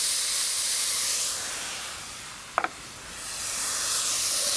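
Chopped onion, garlic and salami sizzling in hot oil in a pan over charcoal: a steady hiss that sinks in the middle, broken by one short sharp knock, and rises again near the end as rice is tipped into the pan.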